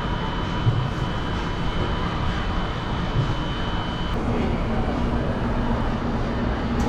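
Steady machine noise with a thin high whine that cuts off about four seconds in, after which a low hum comes in.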